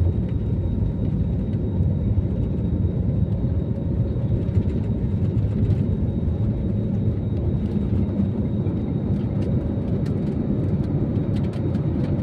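Aeroplane engines during takeoff, a steady low rumble that holds an even level throughout.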